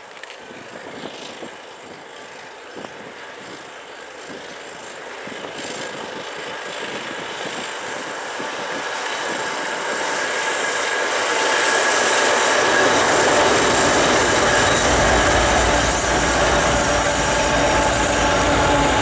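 2M62U two-section diesel locomotive hauling a passenger train, its two-stroke diesel engines growing steadily louder as it approaches. From about two-thirds of the way in, the passenger coaches roll past close by with a low rumble and wheel clatter.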